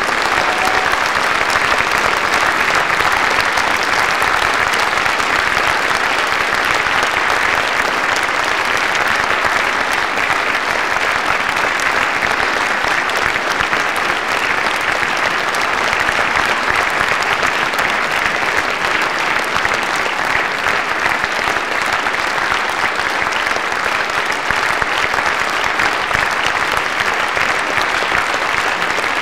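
Large audience applauding steadily, a dense even clapping that swells in just at the start and then holds.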